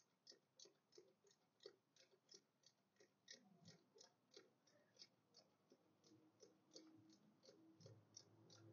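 Near silence with a faint, steady clicking, about three clicks a second.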